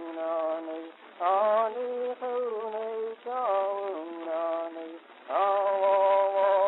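Wordless singing: a single voice sings short held notes in phrases about a second long, each note sliding into pitch at its start, ending on a longer held note. The sound is thin, with no bass or treble.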